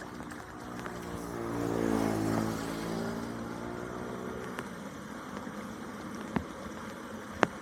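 A motor vehicle driving past, its engine growing louder to a peak about two seconds in and then fading away. Two sharp clicks near the end.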